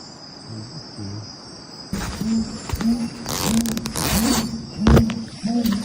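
Crickets and other night insects chirring steadily. From about two seconds in, short low calls repeat about twice a second, with a few louder raspy bursts among them.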